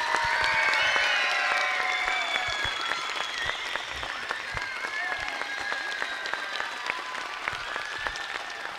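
Audience applauding, with high-pitched cheering voices. It is loudest in the first couple of seconds, then eases into steady clapping.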